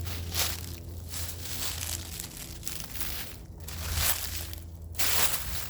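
Irregular crunching and rustling of dry leaf litter and twigs, like footsteps through the woods, over a steady low rumble.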